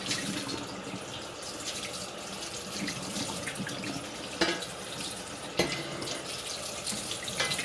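Kitchen sink tap running steadily while dishes are washed, with a few sharp clinks of dishes about halfway through and near the end.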